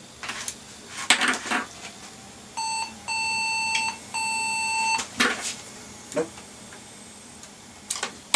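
Computer POST error beep code from the Compaq Deskpro 6400's internal speaker: one short beep, then two long steady beeps at one mid pitch. It signals that the machine will not start with the newly fitted 256 MB PC133 memory stick, a fault the owner traces to the stick. A few short knocks and clicks of hands on the open case are heard around it.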